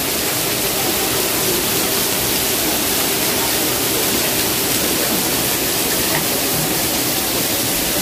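Steady rush of a waterfall: falling water making a constant, even hiss.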